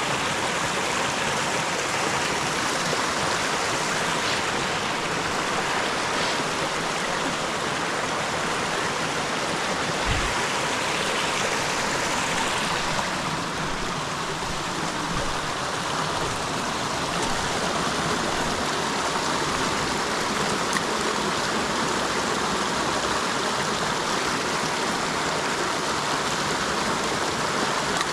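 Creek water flowing, a steady, even rush with no pauses.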